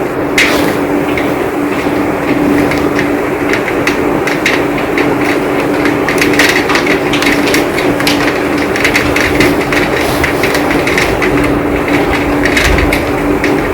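Heavy rain pouring down: a dense steady hiss thick with sharp ticks of drops striking surfaces, over a steady low hum.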